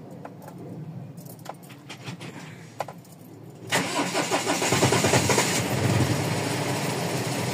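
Mazda BT-50's 3.0-litre WE turbo-diesel engine starting after a few clicks, catching suddenly a little past halfway and then running steadily. This is an engine with a hard-starting complaint and injector-circuit faults on cylinders 1 and 3, which the mechanic blames on the ECU.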